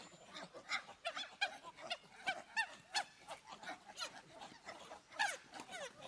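Monkeys calling: a rapid stream of short squeaky calls, several a second and sometimes overlapping, each rising and falling in pitch.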